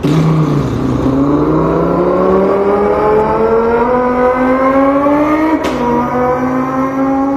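A man vocally imitating an Audi R8's engine: the note dips briefly, then climbs steadily in pitch as if accelerating. About five and a half seconds in it breaks off, as if for a gear change, and carries on at a slightly lower pitch.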